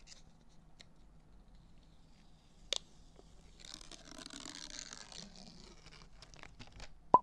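Paper protective film being peeled off a clear acrylic plate, a crackling, tearing rustle for about a second and a half around the middle. A sharp click comes before it, and a louder sharp click right at the end.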